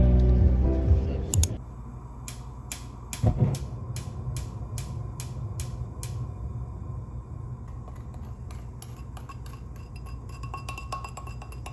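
Background music fades out, then dishes and cutlery clink as they are handled: a quick run of light clicks, about two or three a second, that turns fainter and sparser later on.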